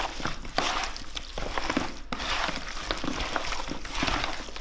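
Raw chicken drumsticks being mixed by hand with salt, pepper and spices in a plastic bowl: a steady run of rubbing noise and many small clicks as the pieces are turned over. There is a short break about two seconds in.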